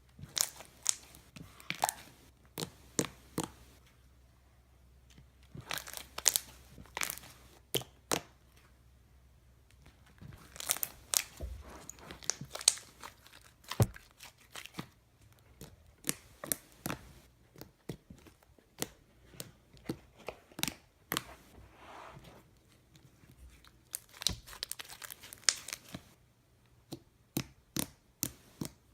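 Soft serve slime, made with cornstarch, lotion and a borax activator, being poked, squeezed and stretched by hand, giving off sharp clicking and popping sounds in clusters with short pauses between them.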